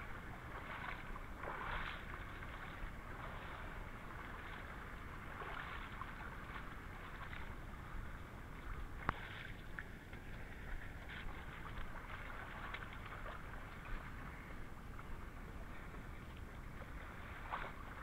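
Creek water splashing and sloshing around the legs of someone wading through it, in an uneven run of small splashes, with one sharp click about nine seconds in.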